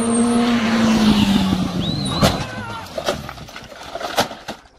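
A car's engine at high revs, its pitch falling as it speeds away, then a brief screech and several sharp bangs, the loudest about two seconds in: a car crashing.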